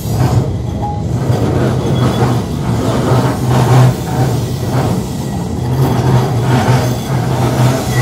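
Keihan electric train moving past a station platform at close range: a low steady hum with the rumble of steel wheels on the rails, swelling and fading over the whole stretch.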